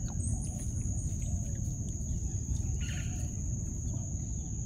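An insect's steady, unbroken high-pitched trill, over a constant low rumble.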